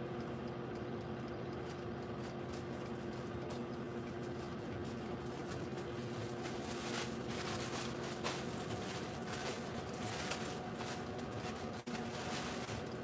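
Steady hum of a running appliance holding several even tones, with a few brief crinkles of a bread bag being handled past the middle.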